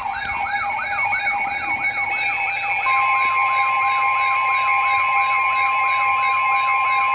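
Electronic siren wailing in fast up-and-down sweeps, about four a second. A steady alert tone joins in about three seconds in.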